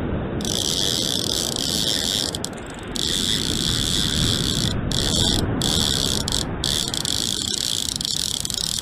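Surf washing and breaking steadily on the beach, with the high clicking buzz of a surfcasting reel's drag giving line in several stretches that start and stop abruptly: a hooked fish is pulling against the bent rod.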